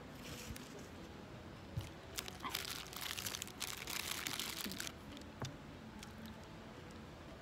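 Paper burger wrapper crinkling as it is handled and peeled back from the burger: a short rustle just after the start, then a longer stretch of crinkling from about two to five seconds in.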